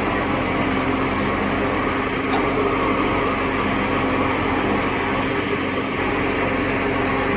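A machine's engine running steadily at an even speed: a constant drone with an unchanging hum.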